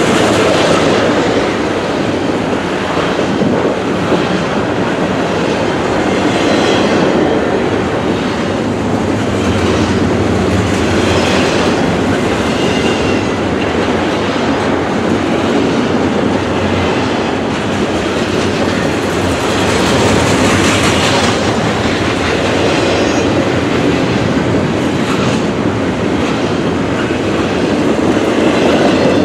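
Double-stack intermodal freight train passing close by: the steady rolling rumble of loaded container well cars' wheels on the rails, continuous and loud.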